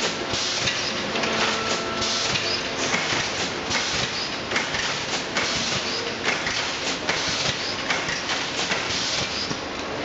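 Ideal GA 400 1600 automatic cable tray welding line running: a dense, continuous mechanical clatter with many irregular clicks and knocks.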